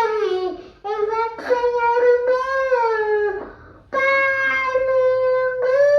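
A child singing a slow melody in phrases, ending on a long held note.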